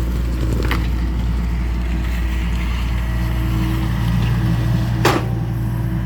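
A John Deere excavator's diesel engine running steadily. There is a light knock near the start and a sharper, louder clank about five seconds in.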